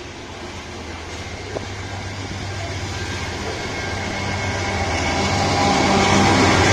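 Freight train's hopper cars rolling past, then a mid-train diesel-electric locomotive approaching and passing. Its engine grows steadily louder and is loudest near the end. There is one sharp click about a second and a half in.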